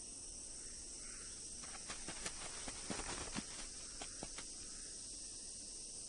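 Steady high-pitched insect chorus, like crickets, with a run of sharp clicks and rustles from about two seconds in, lasting a little over two seconds.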